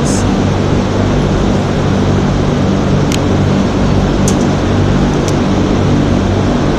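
Electric heat gun running steadily, its fan blowing with a low motor hum, heating the twisted wire splice to melt the solder. A few faint ticks come about three, four and five seconds in.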